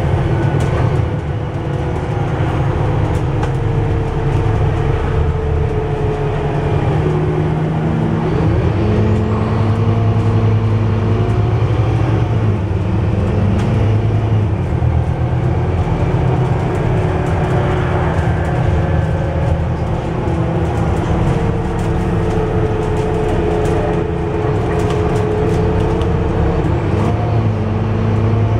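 Scania/Alexander Dennis Enviro400 double-decker bus heard from inside the lower saloon while running at speed: a steady diesel engine drone over road noise. The engine note steps and glides in pitch a few times as the bus changes speed, with a faint whine above it and light rattles from the interior.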